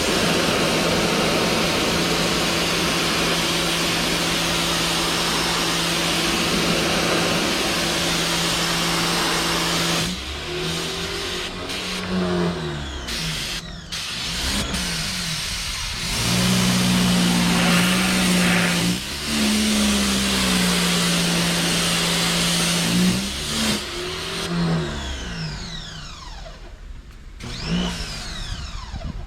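Sun Joe SPX3000 electric pressure washer running, its motor and pump humming steadily under a loud hiss of water spray. From about a third of the way in, the motor repeatedly winds down and spins back up as the spray stops and starts, then holds steady again for a few seconds before stopping and starting a few more times near the end.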